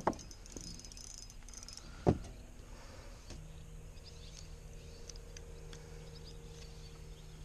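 Handling noise while a small bass is unhooked with pliers on a plastic kayak deck: two short sharp knocks, one right at the start and one about two seconds in. Faint high insect-like chirping comes early, and a low steady hum sets in about halfway through.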